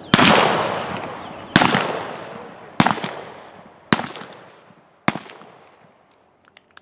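Five revolver shots from a galloping rider, about 1.2 s apart, each followed by a long fading echo, the later ones weaker. They are single-action revolvers firing black-powder blanks at balloon targets in cowboy mounted shooting.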